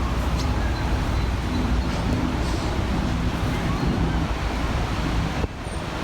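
Steady outdoor background noise: wind on the microphone over a low rumble of traffic, with a brief dip about five and a half seconds in.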